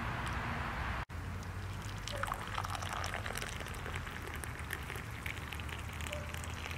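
Tea poured from a teapot into glass cups: a splashing stream that cuts out for an instant about a second in, then a crackly, pattering trickle.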